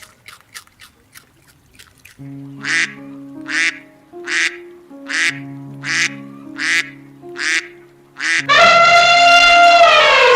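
A duck quacking about eight times at an even pace over background music. Near the end a loud, long, horn-like blast starts, with its pitch dropping.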